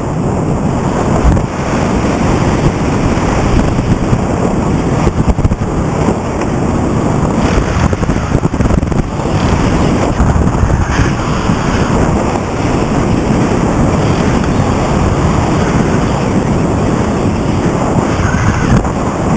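Loud, steady wind rushing and buffeting over the microphone of a paraglider in flight.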